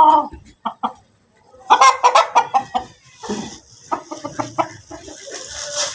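Chickens clucking in short, repeated calls, with a louder cluster about two seconds in.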